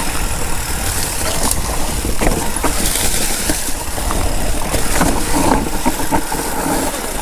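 Electric mountain bike riding down a dirt singletrack: knobby tyres rolling and skidding over dirt and rocks, with the chain and frame clattering in short knocks over the bumps. A heavy rumble of wind buffets the microphone throughout.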